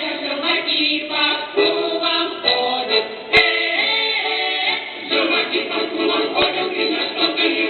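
Russian folk choir singing a folk song, several voices together. A single sharp click cuts through the singing about three and a half seconds in.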